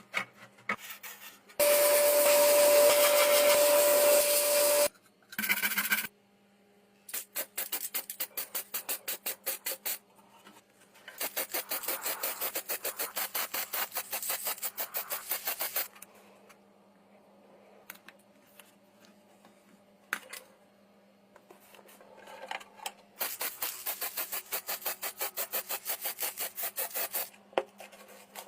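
Hand sanding: quick back-and-forth rubbing strokes, about five a second, in several bouts of a few seconds each. Near the start comes a louder steady rasp with a whine, lasting about three seconds.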